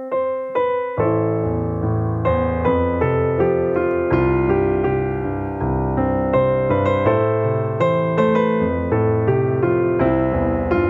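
Solo piano starting up: a few separate single notes, then from about a second in a bass line and full chords join and keep a steady, even rhythm.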